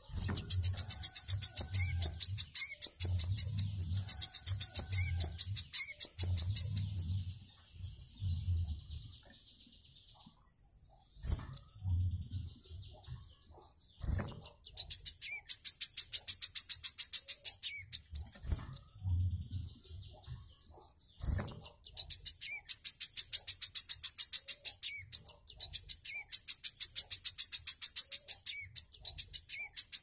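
Caged songbird (a 'wiceh' kept for training other birds) singing long, very fast trills of high repeated notes in several bursts, with a pause of a few seconds near the middle. A low pulsing sound runs under the first few bursts, and a few sharp clicks fall in the quieter middle stretch.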